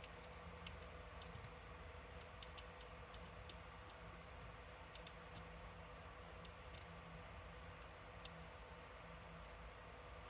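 Faint, irregular small clicks of metal tool tips against tiny surface-mount components on a circuit board, over a low steady hum. The clicks come in scattered clusters and stop about eight seconds in.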